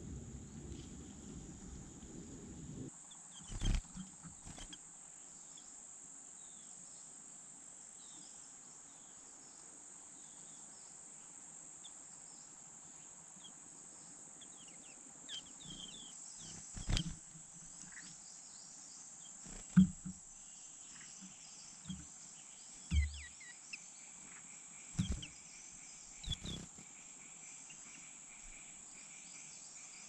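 Outdoor pond ambience: a steady high hiss with short bird chirps, broken by several sudden low thumps and splashes, the loudest about twenty seconds in. A low rumble cuts off about three seconds in.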